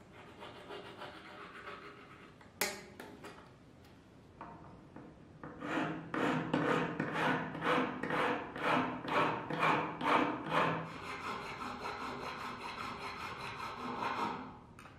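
Hand filing of a small metal knife part with a needle file: a faint rasp and one sharp click early on, then regular back-and-forth file strokes about two a second, changing a little after halfway to a faster, continuous rasp that stops shortly before the end.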